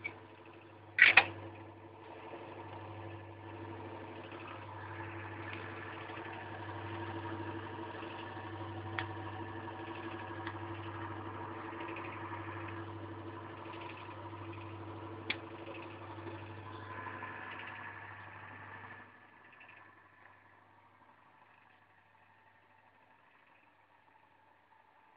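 Old Marelli six-pole induction motor, converted from three-phase to single-phase 220 V with a run capacitor, running steadily with an even mains hum and a whine, driving a small DC motor through a coupling. A sharp knock about a second in, and a couple of light clicks later. The running sound drops away about nineteen seconds in, leaving a faint fading hum.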